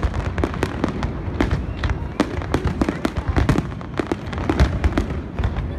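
Aerial fireworks display: shells bursting in a rapid string of bangs and crackles, several a second, over a continuous low rumble.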